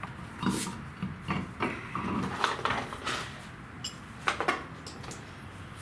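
Irregular metal clanks and knocks of a car's road wheel being handled and fitted back onto the hub studs, with two sharper knocks close together about three-quarters of the way through.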